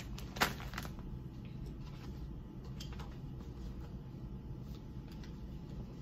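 Small plastic doll parts clicking and rustling as they are handled, with one sharp click about half a second in and a few fainter ticks after, over a steady low room hum.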